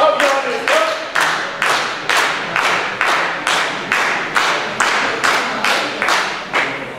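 Audience clapping in unison in a steady rhythm, about two claps a second, to cheer a weightlifter on before his lift; the clapping dies away near the end.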